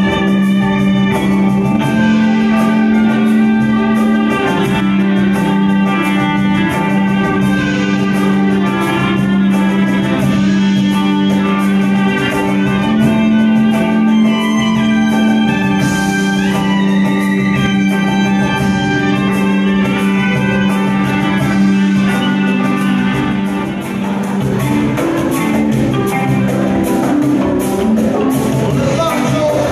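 Live rock band playing an instrumental passage: guitar and violin over steady low held notes, with cymbals ticking above.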